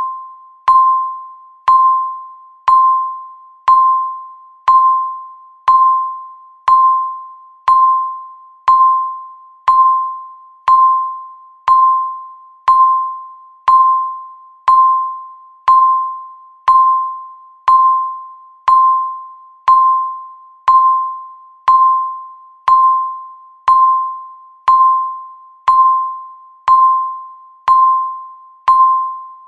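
Countdown timer's electronic beep sounding once every second, a single bell-like tone of the same pitch each time that starts sharply and fades away before the next one, ticking off the seconds of the countdown.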